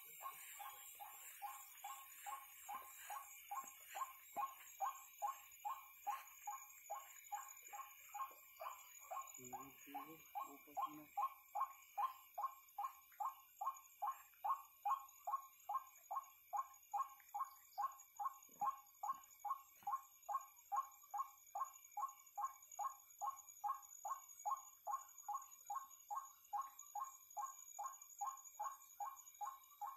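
A night animal calling: one short, clipped note repeated very evenly about two and a half times a second, growing louder towards the middle, over steady high-pitched background tones.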